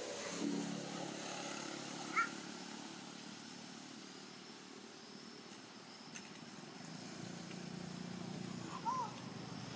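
Background motor vehicle engine hum, swelling about half a second in and again from about seven seconds, with short high chirping calls about two seconds in and near the end.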